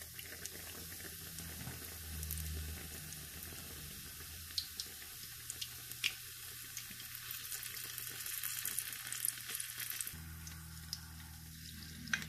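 Batter-coated chicken bread pakora frying in hot oil in a nonstick pan: a steady sizzle with scattered crackles and pops. A louder click comes near the end.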